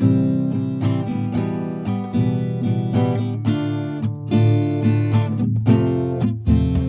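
Background music on acoustic guitar, with notes picked and chords strummed in a steady run.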